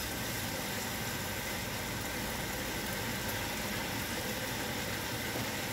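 Beef steak frying in a pan on a gas stove: an even, steady hiss with a low hum underneath.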